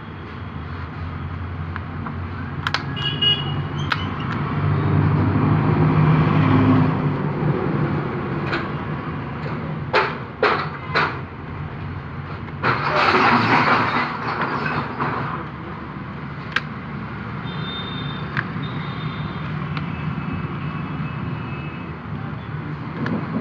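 Road traffic: vehicle engines running and passing, a rumble that swells and fades, with a few sharp clicks and brief high tones.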